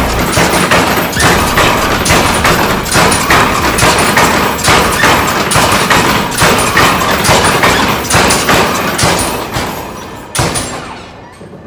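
Stamping mill (stamper battery) running, its heavy stamps pounding in a steady rhythm of about two to three blows a second, loud, then fading away near the end.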